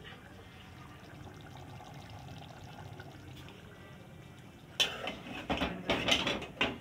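Steady low hiss of food cooking in a pot on a gas stove. From about five seconds in, a metal slotted spoon clatters and scrapes sharply against an aluminium cooking pot as the food is stirred.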